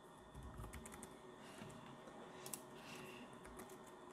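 Faint clicking of a computer keyboard: a handful of scattered key presses as a word is typed.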